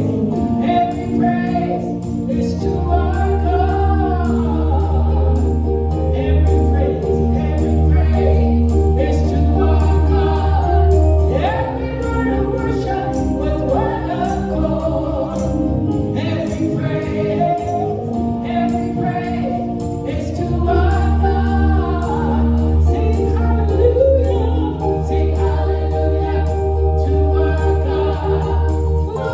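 Gospel music: a choir singing over a band with a steady percussion beat and long held bass notes.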